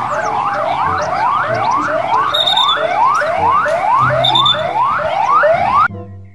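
Police car siren sounding in fast, repeated rising sweeps, about two and a half a second. A second siren tone overlaps during the first second. The siren cuts off suddenly near the end.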